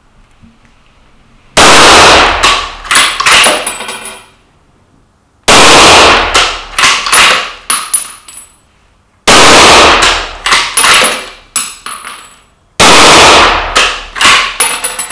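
Four shots from a moderated Browning AB3 bolt-action rifle in .30-06, about four seconds apart. Each shot is followed by the clatter of the bolt being worked and a brief high ring as the spent brass case lands.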